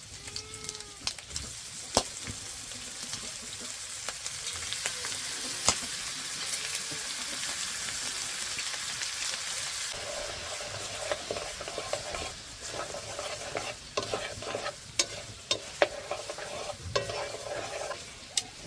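Food sizzling in a hot pan as it is stirred, with the utensil clicking sharply against the pan now and then. The sizzle is strongest in the first half; after that, scraping stir strokes come to the fore.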